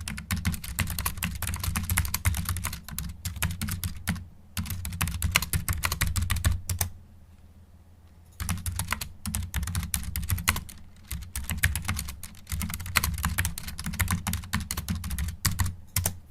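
Fast typing on a computer keyboard: rapid key clicks in long flurries, stopping for about a second and a half near the middle before carrying on.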